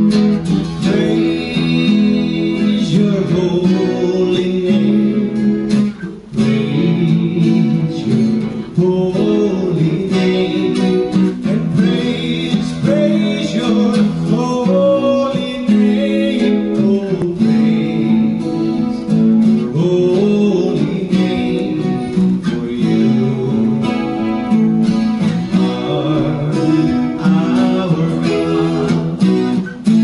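A man singing while strumming an acoustic guitar, with a brief break in the playing about six seconds in.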